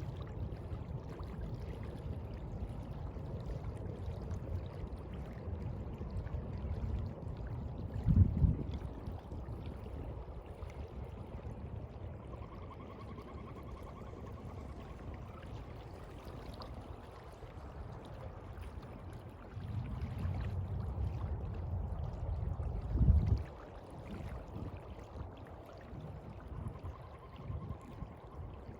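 Sea water washing and sloshing steadily, with two short, loud low thumps, one about a third of the way in and one about three quarters of the way in.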